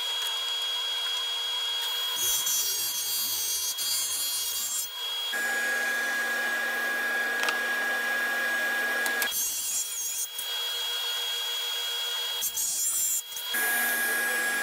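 Table saw running and cutting through a slab of hardwood pieces set in epoxy, a steady whine over a rushing noise, its pitch changing abruptly a few times.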